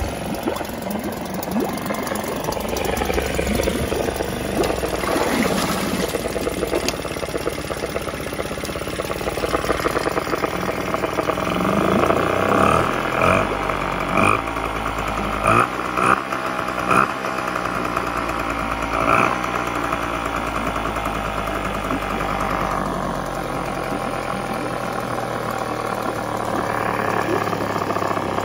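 1990s Mercury 4 hp two-stroke outboard running in a test tank with its cowling off. It is blipped up in several short bursts of higher revs about halfway through, then settles back to a steady idle.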